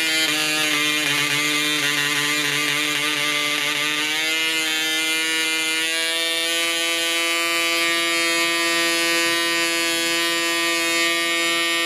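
PAW .55 model diesel (compression-ignition two-stroke) engine running at high revs on a test stand, spinning its propeller with a steady, high-pitched buzz. The revs rise slightly about four seconds in and again around six seconds in.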